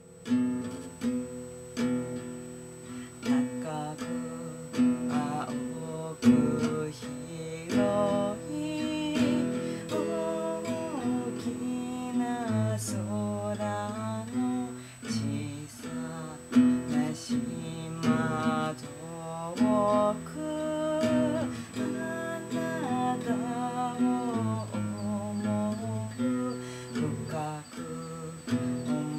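Acoustic guitar played by hand, a continuous run of plucked notes and chords.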